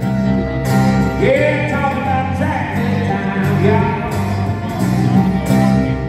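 Live country band playing: acoustic guitars and bass under a sung melody line from a male lead singer, recorded from far back in a large arena.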